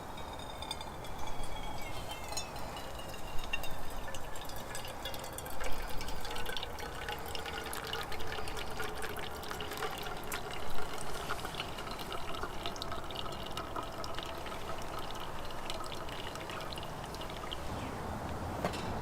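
Liquid poured steadily into a container, with a faint gliding ringing tone in the stream and scattered drips.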